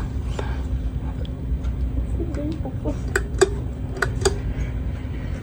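Steady low rumble and hum of a running 52-inch Gulf Coast Meridian ceiling fan, with its moving air on the microphone. Four sharp clicks come in the middle and latter part, and a faint voice can be heard.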